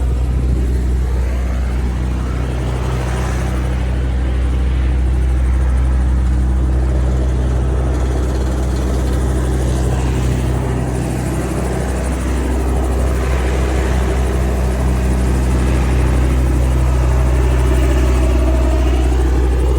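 Robinson R44 helicopter running steadily: a loud, even drone of the rotor and its Lycoming six-cylinder piston engine.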